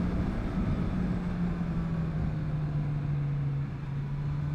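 Honda CB1000R's inline-four engine running steadily at cruising speed, with wind and road rush around it. The engine note drops a little about three seconds in.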